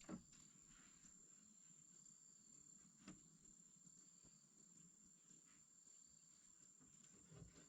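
Near silence with a faint, steady high-pitched insect drone from the surrounding forest. Three soft knocks fall right at the start, about three seconds in, and near the end.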